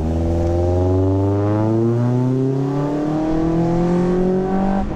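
A car engine accelerating hard as the car pulls away, its pitch rising steadily throughout.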